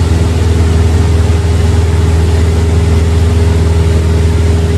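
Cessna 172's piston engine and propeller running steadily in cruise flight, a constant low drone heard from inside the cabin.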